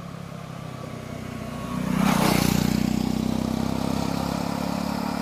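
Vehicle engine running steadily, then revving up about two seconds in with a short rush of noise, and running louder afterwards.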